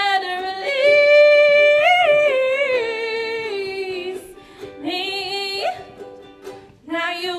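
A woman singing solo to her own ukulele accompaniment, holding one long note that slides down at its end, then singing shorter phrases with pauses between.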